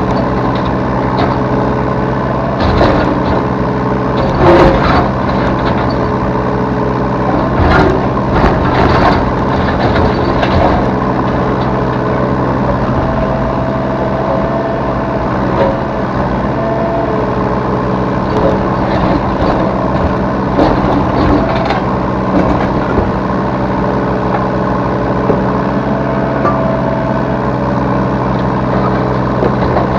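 Yanmar B3 Sigma mini excavator's diesel engine running steadily at working revs, with a thin whine rising in now and then and several sharp clanks as the machine works.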